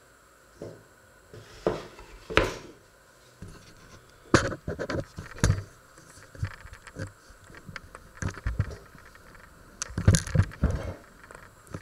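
Scattered knocks, clatters and scrapes of kitchen things being handled and set down on a wooden counter, the loudest about four seconds in, about five and a half seconds in, and a cluster near the end.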